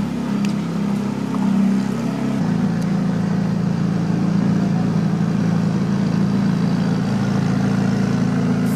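McLaren 570S's 3.8-litre twin-turbo V8 idling steadily, with a slight change in tone about two and a half seconds in.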